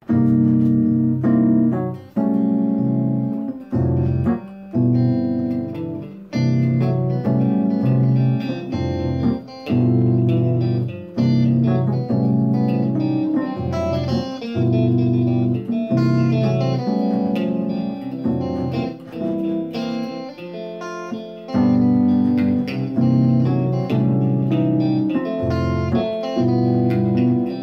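Electronic keyboard playing held chords over a bass line with an electric guitar, in the Ghanaian amponsah rhythm. The chords change every one to two seconds, with short breaks, and are voiced with 13th and tritone chords.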